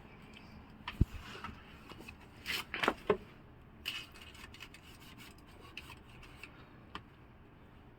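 Hand tools and metal parts being handled during car servicing: a sharp knock about a second in, a cluster of louder metal clinks and scrapes near the middle, then a few light ticks.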